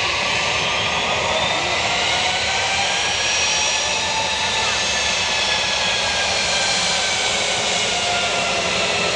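British Airways Airbus A321's jet engines whining steadily as the airliner taxis and turns onto the runway: a loud even roar with several high whines drifting slightly in pitch.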